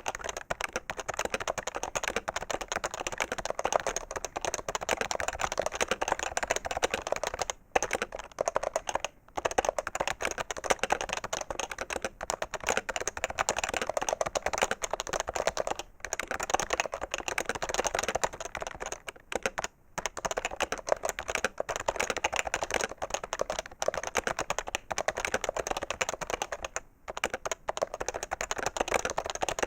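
Fast, continuous typing on a PFU HHKB Professional 2 keyboard, its Topre electrostatic capacitive key switches clacking in quick runs. The typing breaks off for a moment a few times. The sound is heavier than a mechanical-switch keyboard and sharper than other Topre boards.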